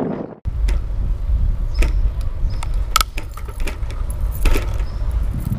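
Riding noise from a bicycle-mounted action camera: a steady low rumble of wind on the microphone and wheels on the road, with scattered light clicks and rattles from the bike and its wire front rack. The sound cuts out for a moment about half a second in.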